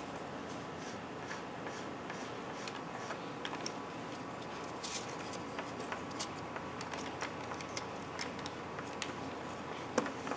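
Pastel stick scratching and tapping on paper in short, irregular strokes, with a louder tap about ten seconds in, over a faint steady hum.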